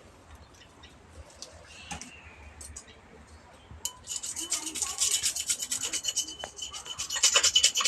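Fast rubbing or scraping strokes, as of abrasive work on a part, starting about four seconds in and growing louder toward the end, with a faint steady high whine underneath.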